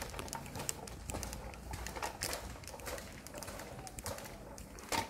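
A hand-pushed measuring wheel rolling over gritty concrete with footsteps alongside: a run of light, irregular clicks and scuffs.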